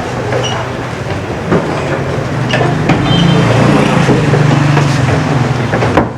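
A motor vehicle engine running close by, a steady low hum that swells about three seconds in, with a few sharp clicks over it.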